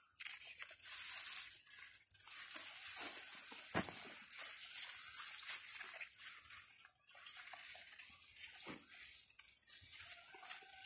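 Rustling of capsicum leaves and stems as hands move through and handle the plants, with a couple of short clicks, one about four seconds in and one near nine seconds.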